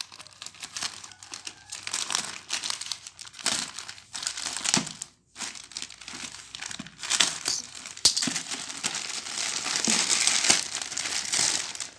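Plastic courier mailer bag crinkling and rustling as it is cut and pulled open. There is a brief pause about five seconds in, and the crinkling is denser and louder in the second half.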